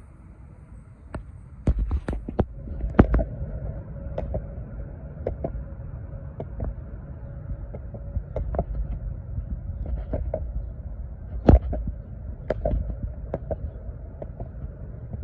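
Penny board's plastic wheels rolling on a concrete path: a steady low rumble broken by sharp clicks and knocks as the wheels cross joints and rough spots, the loudest one past the middle. A faint steady tone runs through the first half.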